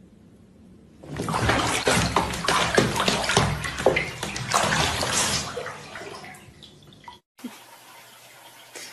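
Water splashing hard in a bathtub as a kitten thrashes in it: a burst of loud, choppy splashes that starts about a second in and dies away after about five seconds.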